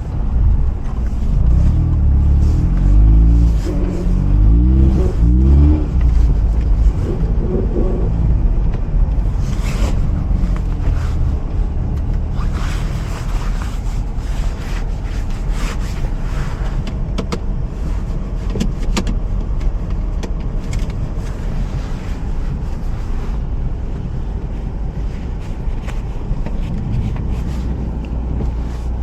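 Mazda RX-8's rotary engine accelerating, its pitch rising several times over the first six seconds, then settling into a steady low drone. Tyre and road noise from the snowy road runs underneath, with a hissier stretch in the middle.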